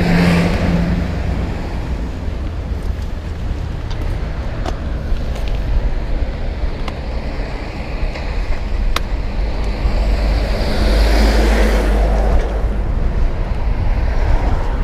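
Ride noise from a bicycle on a wet city street: a steady low wind rumble on the microphone under a constant hiss. A vehicle goes by near the start, and another swells up and fades about eleven seconds in.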